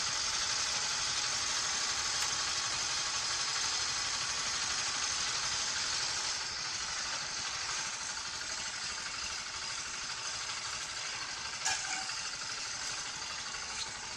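Honda Cub's small single-cylinder four-stroke engine running steadily at idle just after being kick-started, its first run after the engine was taken apart for inspection. It eases slightly quieter about halfway through, with a single brief click near the end.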